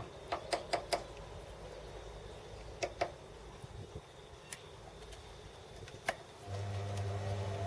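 Several sharp taps and clicks as a spindle blank is set true in the lathe. About six and a half seconds in, the lathe motor starts and runs with a steady hum.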